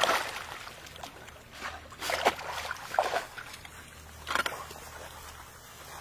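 Water splashing and sloshing as a Labrador puppy swims, with several separate splashes: one at the start, then more about two, three and four and a half seconds in.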